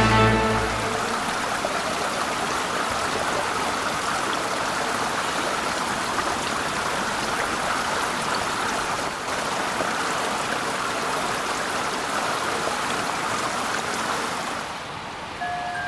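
Fountain water splashing and spilling over the rim of a basin in a steady rush, which drops away near the end.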